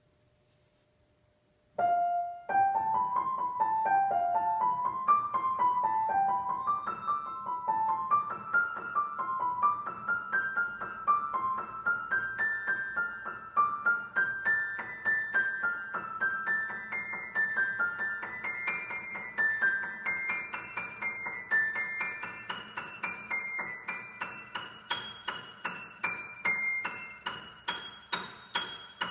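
Steinway model L grand piano being played. After about two seconds of near silence, a flowing line of quick notes rises and falls in waves and climbs gradually higher over sustained lower notes.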